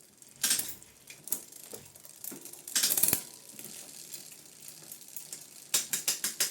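Bicycle parts being handled during a rear derailleur refit: scattered sharp clicks and short metallic rattles, then a quick run of ratcheting clicks near the end.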